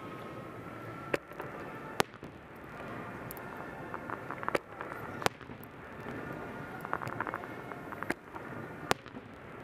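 Fireworks display: six sharp bangs of bursting shells in about eight seconds, with bouts of crackling from glittering stars between them.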